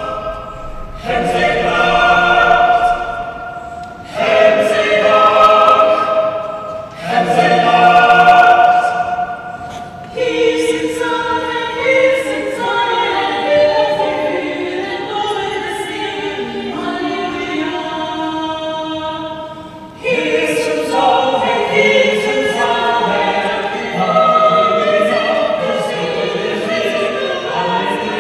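A choir singing in harmony, held chords in phrases of a few seconds each; about ten seconds in the voices overlap into a denser weave, and a new phrase starts at about twenty seconds.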